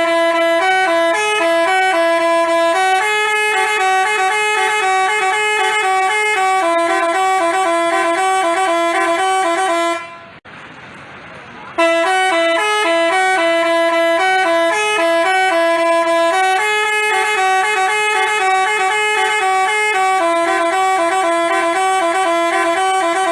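Basuri telolet musical bus horn playing a melody of held, stepped notes. The tune plays through, breaks off about ten seconds in for a pause of roughly two seconds, then repeats.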